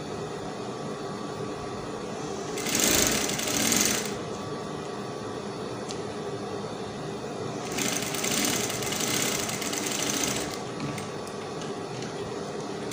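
Industrial straight-stitch sewing machine stitching in two short runs, the first about a second and a half long and the second about three seconds, with a steady hum between them.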